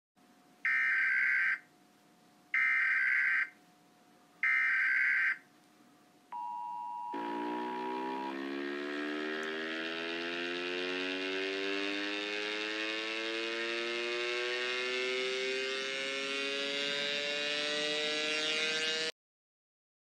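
US Emergency Alert System tones: three one-second bursts of warbling header data, then a brief steady two-tone attention signal. After that comes a dense chord of many tones that slowly rises in pitch for about twelve seconds and cuts off suddenly.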